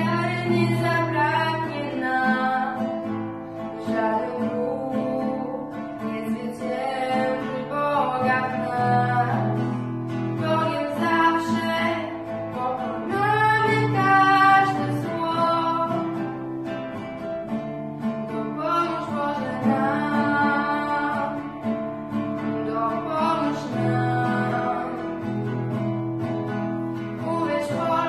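A girl singing a song with acoustic guitar accompaniment played by a second girl.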